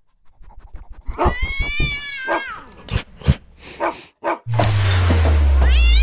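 Logo jingle sound effects: a cat meows once, drawn out, about a second in, followed by a few clicks and pops. Near the end a deep falling whoosh comes in with a hiss, and a second meow starts over it.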